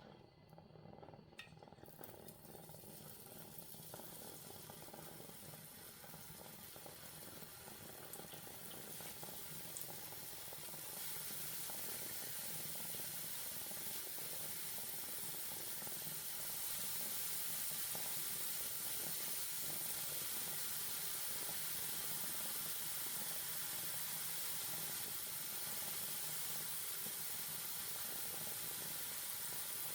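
Hot oil sizzling as drops of gram-flour (besan) batter fry into mihidana. The sizzle builds over the first fifteen seconds or so, then holds steady.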